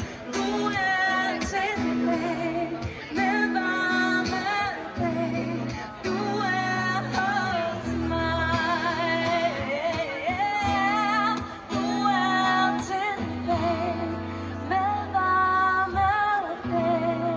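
A song being performed: singing over instrumental accompaniment, with held, wavering vocal notes above sustained bass notes.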